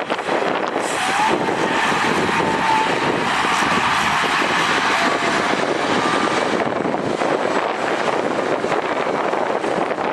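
Diesel engines of heavy earthmoving machinery running steadily, with a faint high whine for a couple of seconds about a second in.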